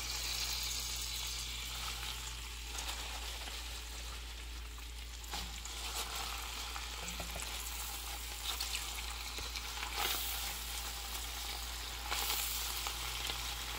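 Sweet potato greens sizzling in hot butter and garlic in an enamelled cast-iron Dutch oven, a steady hiss, while they are tossed with a wooden spoon. A few short knocks of the stirring come through.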